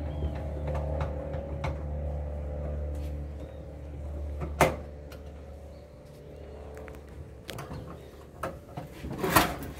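A few sharp metallic clicks and knocks from a screwdriver working at screws on a gas water heater's sheet-metal frame. The loudest comes a little before halfway, and a cluster follows near the end. A steady low hum runs underneath and fades out about halfway.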